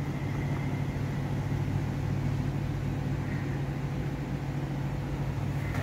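Steady low hum of running machinery, unchanging throughout.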